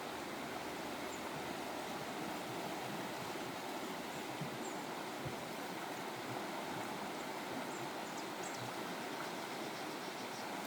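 Steady rush of running water, with a few faint, short high chirps.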